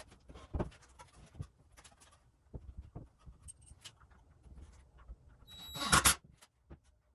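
Light clicks and knocks as a lag screw and rack bracket are handled against the wall, then a brief loud burst about six seconds in from a Craftsman 20V impact driver starting to drive the lag screw.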